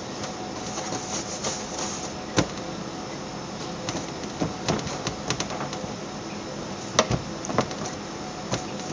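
Bread dough being rounded by hand on a stainless steel worktop, with irregular sharp knocks of hands and dough against the steel, the loudest about two and a half and seven seconds in. A steady hum of kitchen machinery runs underneath.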